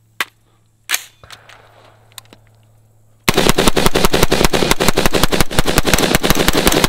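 Daniel Defense GL SSE AR-15 rifle with a 12-inch barrel: a few sharp clicks, then about three seconds in a long, unbroken string of rapid gunshots, many shots a second.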